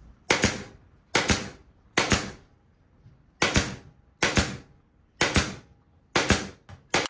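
Pin nailer firing pins into wooden trim on a panel, about eight sharp snaps roughly once a second.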